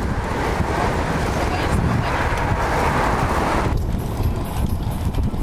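Wind buffeting the microphone and the rumble of a bicycle riding among a group of cyclists. About four seconds in, the hiss drops away, leaving a fast, uneven rattling rumble as the bike rolls over cobblestones.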